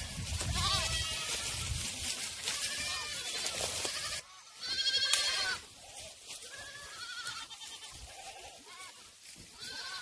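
A herd of Korean black goats bleating, many separate wavering calls from different animals, the loudest about five seconds in.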